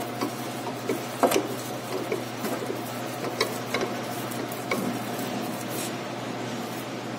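Scattered light clicks and knocks of tools and parts being handled during work on a car's steering tie rod, the loudest a little over a second in, over a steady low hum.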